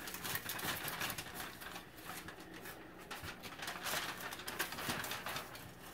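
Aluminium foil crinkling and rustling as roasted green beans are shaken out of it onto plates, with small crackles throughout.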